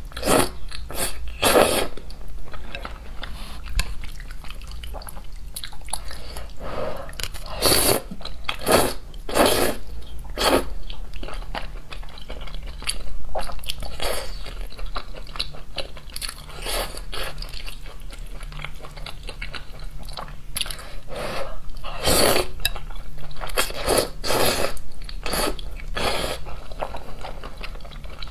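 Close-miked eating sounds: a person slurping and chewing thick noodles in sauce, with wet mouth and bite noises coming in irregular clusters.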